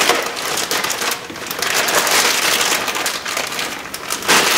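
Clear plastic packaging bag crinkling and rustling as a new power window regulator is pulled out of it.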